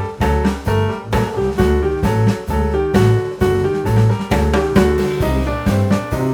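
Background music: piano over a bass line, with a steady beat.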